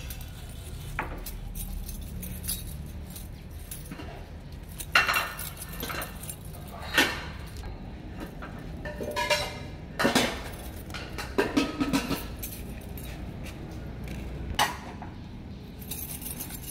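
Scattered light clinks and jingles, a handful of sharp ones a second or two apart, over a low steady background hum.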